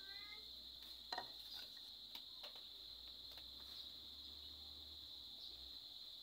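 Steady high-pitched chirring of crickets in the background, with a few faint clicks from the knife being handled.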